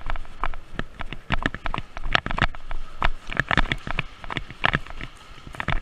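A rapid, irregular series of sharp clicks and knocks, several a second and uneven in loudness.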